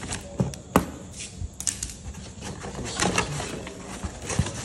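Cardboard box being opened by hand: flaps pulled back with crackling and scraping of cardboard and tape, and a series of sharp knocks, the loudest a little under a second in.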